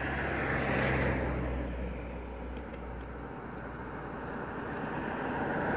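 A road vehicle passing: a low rumble that swells about a second in and fades, then rises again near the end.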